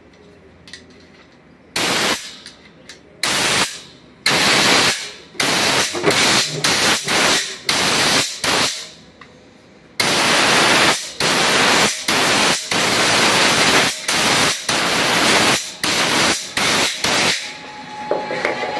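Compressed-air blow gun blasting air through a motorcycle carburettor body to clear dirt from its passages. It comes in repeated loud hissing bursts, some short, some a second or more long, starting about two seconds in, with a longer unbroken blast at about ten seconds.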